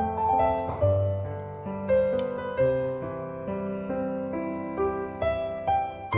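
Background piano music, slow notes and chords each struck cleanly and left to fade.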